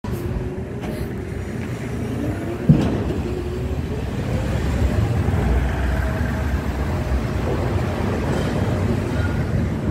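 Steady low rumble of outdoor machinery and wind, with a faint hum that slowly rises in pitch and one sharp knock about three seconds in.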